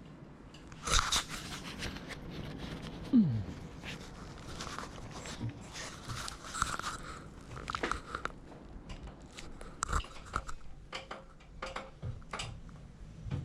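Irregular knocks, clicks and clatter of things being handled, with a brief falling squeak about three seconds in.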